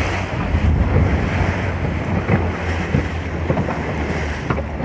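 Motor boat's engine running steadily under way, a constant low hum, with wind buffeting the microphone and water rushing and slapping against the hull in choppy sea.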